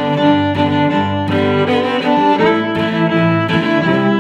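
Background music: a string piece with violin and cello holding long notes that change about once a second.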